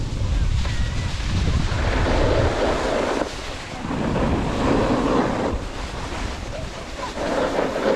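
A snowboard sliding and carving on groomed, packed snow, its scraping hiss swelling and fading a few times, with wind buffeting the helmet or body-mounted camera's microphone as it rides at speed.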